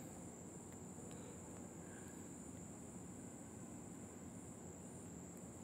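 Faint room tone: a low hiss under a steady, unbroken high-pitched whine.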